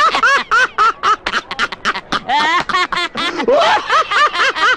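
Two men laughing hard together, a fast run of loud 'ha-ha' peals at about five a second, rising and falling in pitch.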